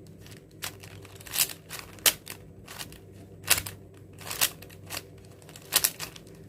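Plastic 4x4 Rubik's cube being turned by hand: a series of short, sharp clicks as the layers snap round, at an irregular pace.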